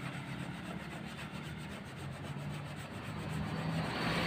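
Hand wet-sanding of primer on a car body panel: sandpaper rubbing back and forth over the wet surface. Street traffic rumbles steadily underneath, growing louder near the end.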